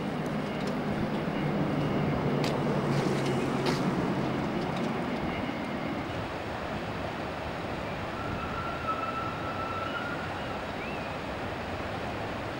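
Steady outdoor rushing of wind and river water, with a low motor hum in the first five seconds that fades away. A few faint clicks come early, and a faint high whistle-like tone comes about eight seconds in.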